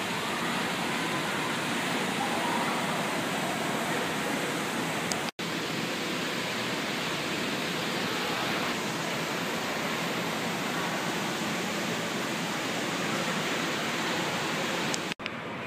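Steady wash of indoor pool noise: splashing and spraying water echoing through the pool hall, broken twice by a brief drop-out.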